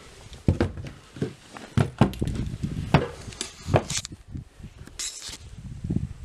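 Footsteps on old bare wooden floorboards, a knock about every half second, with gritty scuffs of debris underfoot near the middle and about a second before the end.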